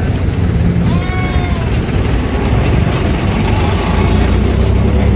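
A single short bleat about a second in, over a steady low rumble.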